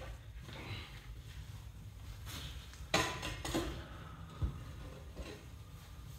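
A few light clicks and knocks of a hand tool working on the steel door hinge, with a sharper click about three seconds in and another about four and a half seconds in, over a low steady hum.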